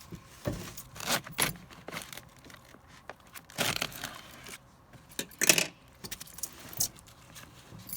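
Hands working at a sealed plastic bucket and its screw-top lid, making a handful of short, irregular scraping, rattling and crinkling noises.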